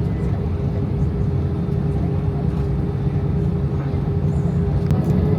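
Steady low rumble of an Airbus A320-200's jet engines heard inside the passenger cabin, with a steady hum over it.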